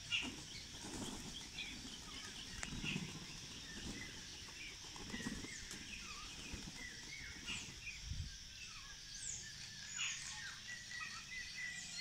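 Small birds chirping and tweeting in many short high calls throughout, with a few soft flutters of pigeon wings.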